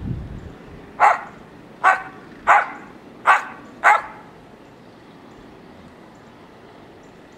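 Samoyed dog barking five times in quick succession over about three seconds, short sharp barks.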